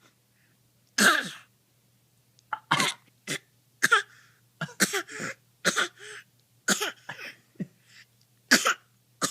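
Deliberate fake coughing: a string of about a dozen short, sharp coughs, some in quick pairs, with brief silences between. The first, about a second in, is the loudest.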